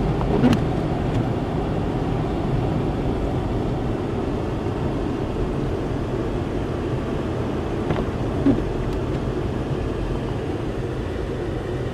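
Steady road and engine noise of a car driving on snow-covered streets, heard inside the cabin, with a brief click about half a second in and another about eight seconds in.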